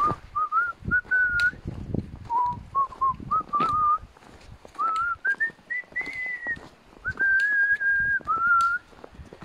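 A man whistling a tune while walking downhill, a single clear wavering note line forming phrases. Irregular soft knocks of footsteps and trekking-pole taps in snow run underneath.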